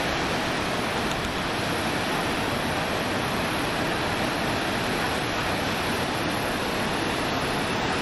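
Waterfall's rushing water, a steady even roar without breaks.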